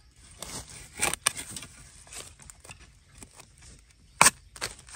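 A few sharp chops of a blade into the soil around a wild bamboo shoot, two close together about a second in and the loudest near the end, with small crackles between.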